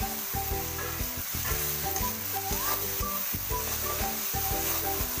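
Chicken masala sizzling as it fries in a steel kadhai, with a steel spatula stirring and scraping through it, over background music.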